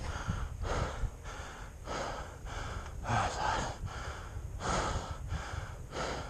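A person panting hard, close-up: quick, regular breaths about every half second, the heavy breathing of a rider winded after a rocky climb.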